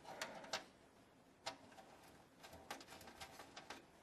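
Faint, scattered clicks and light taps of a power cable and parts being handled inside a computer case: a few single clicks, then a quick run of them near the end.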